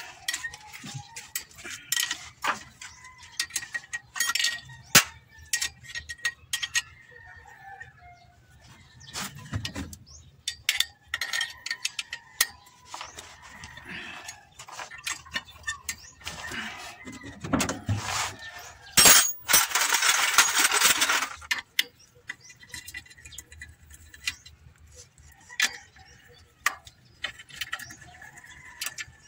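Metal clinks and clicks of a box-end wrench working the bolts of a Suzuki Multicab's clutch pressure plate as it is unbolted from the flywheel. About two-thirds through, a loud hiss lasts about two seconds.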